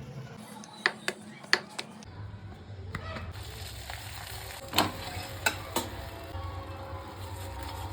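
Methi aloo paratha frying on a hot tawa: steady sizzling, with several sharp clicks and taps of a utensil against the pan.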